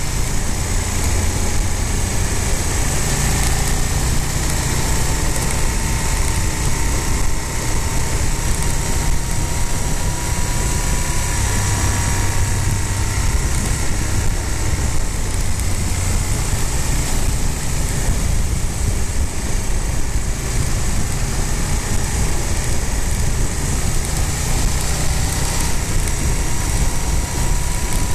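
Motorcycle engine running steadily at cruising speed, about 60 to 70 km/h, with wind and road noise rushing over the bike-mounted microphone.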